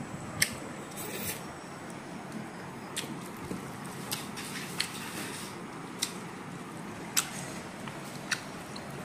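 A person eating rice and chicken curry with their fingers: scattered sharp clicks and smacks of chewing and of fingers working the food on the plate, every second or so, over a steady low room hum.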